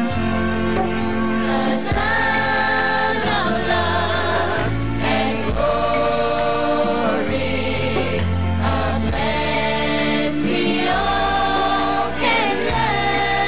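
A choir singing a slow gospel-style song with accompaniment, long held chords that change every second or two over a moving bass line.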